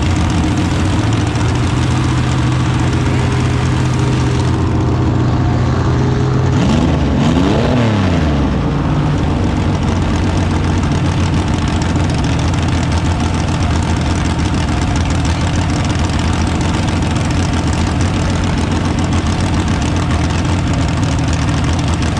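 Engine idling steadily. About seven seconds in, an engine briefly revs up and back down.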